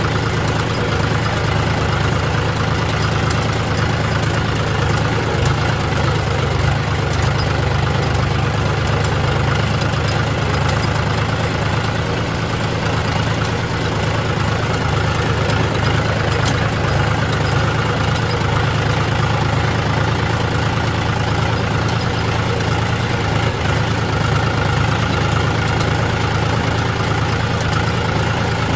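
John Deere tractor's diesel engine running steadily at low speed as the tractor creeps along a rough dirt track, heard close from the driver's seat.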